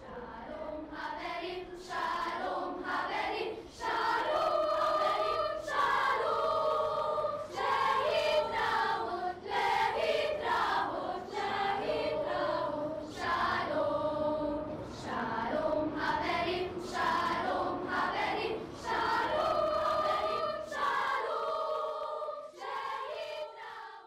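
A choir of high voices singing a slow melody in sustained phrases, fading out at the end.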